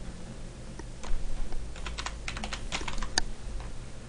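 Typing on a computer keyboard: a run of uneven keystrokes, bunched most densely in the second half, with one louder click a little after three seconds in.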